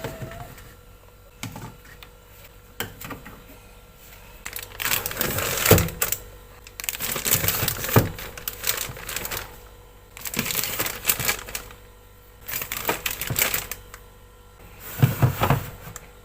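Handling noise from food containers and packaging: rustling and clattering in about five bursts of a second or two each.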